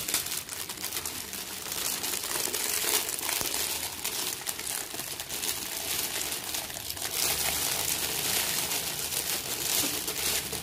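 Thin clear plastic wrapping crinkling and rustling as it is pulled off two plastic water bottles by hand.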